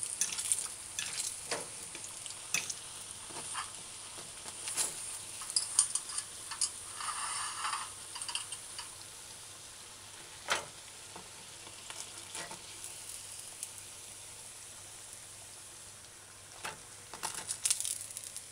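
Okra codfish fritters sizzling in shallow oil in a stainless steel skillet, with a fork clicking against the pan now and then as the fritters are turned and lifted out, several clicks close together near the end.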